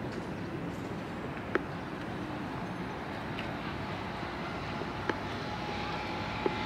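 Steady outdoor background hum of distant traffic and harbourside activity, broken by a few sharp clicks. A faint steady tone comes in near the end.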